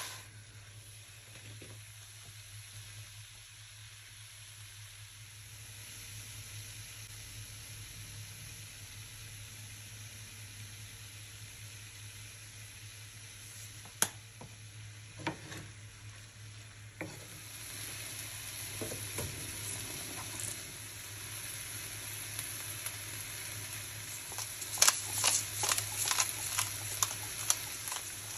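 Diced raw chicken breast sizzling in a non-stick frying pan on a gas stove, the sizzle growing louder a little past the middle. A single sharp click about halfway through, and a quick run of clicks and taps near the end.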